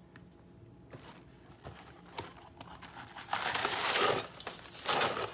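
Glad Press'n Seal plastic wrap crinkling as it is handled and pulled from its box, in two noisy spells starting about three seconds in.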